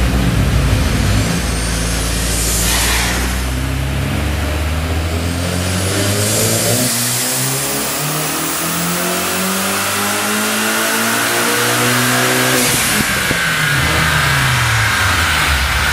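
Volkswagen 1.8T turbocharged four-cylinder with a FrankenTurbo F23 hybrid turbo, making a dyno pull: the revs climb steadily for about ten seconds, then fall away near the end with a short hiss as the driver lifts.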